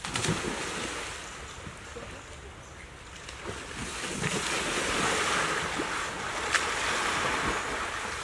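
River water rushing, with splashing as a person wades through it; the water noise grows louder about four seconds in.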